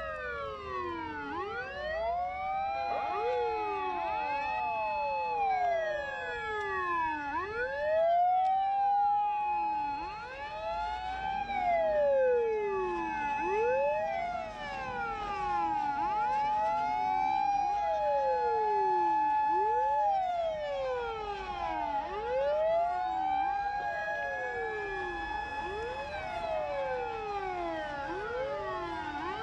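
Several fire-engine sirens wailing at once, out of step with each other, as a convoy of emergency vehicles drives past under emergency running. Each siren rises to a high held tone, holds it, then drops away, over and over, with vehicle engines faintly underneath.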